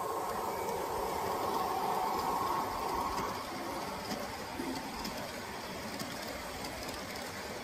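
G-scale model diesel locomotive with loaded hopper cars rolling past on the track: a steady hum of the motor and wheels that eases off about three seconds in, as the locomotive moves away and the hopper cars follow.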